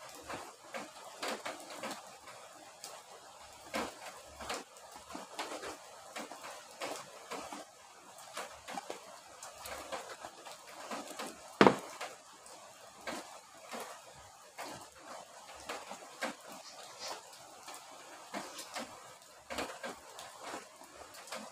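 The tail end of a rain shower: irregular drops and drips tapping over a soft, steady hiss, with one sharp, louder knock about halfway through.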